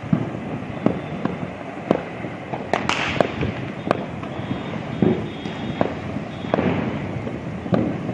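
Fireworks going off across the city: a string of sharp, irregular bangs about once a second, with a louder cluster and a hiss about three seconds in, over a steady low background noise.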